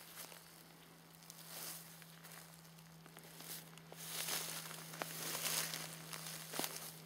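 Footsteps rustling and crunching through grass and leaf litter, with scattered small clicks. It grows louder about halfway through, over a steady low hum.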